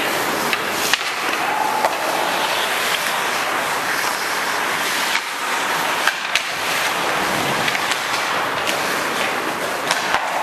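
Ice skates scraping and carving on rink ice as a group of players skates a passing drill, with scattered sharp clacks of hockey sticks on the puck and ice. A steady rush of blade noise with clicks.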